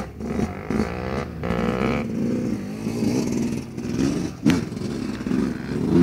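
Motocross bike engines heard across the track, revving up and falling back in pitch as the riders accelerate and back off.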